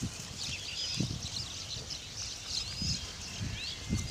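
Herd of wild boar foraging, with short low grunts a few times. Many brief high chirps run over them.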